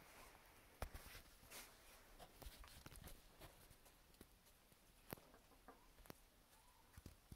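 Faint sounds of hens pecking at the ground: scattered sharp taps of beaks striking the floor, with soft clucking now and then.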